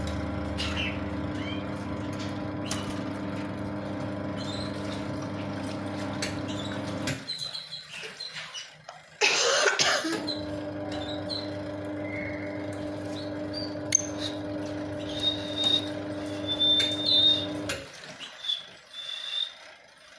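Short, high-pitched chirps from pet lovebirds, several in the second half, over a steady machine hum. The hum cuts out about seven seconds in and comes back after a brief loud rushing noise.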